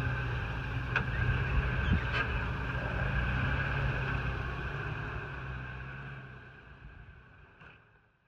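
Toyota Hilux pickup's engine running steadily at low revs, with a steady high whine over it and a couple of knocks about one and two seconds in. The whole sound fades out to silence near the end.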